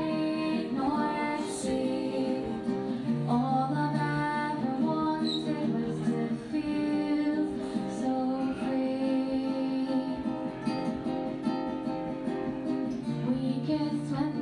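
A woman singing a folk song over a strummed acoustic guitar.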